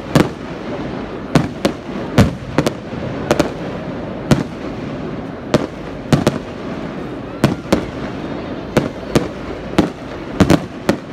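Fireworks display: aerial shells bursting in an irregular rapid series of sharp bangs, roughly one to two a second, over a continuous background noise.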